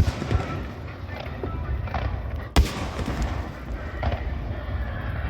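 Aerial firework shells bursting: one sharp bang at the very start and another about two and a half seconds later, each trailing off in echo, over music in the background.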